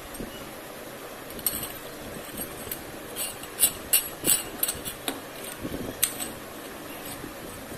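Small welded steel ring clamps clinking against each other and against a steel pipe as they are handled and slid onto it: a string of sharp metallic clinks, most of them between about one and a half and five seconds in, with one more near six seconds.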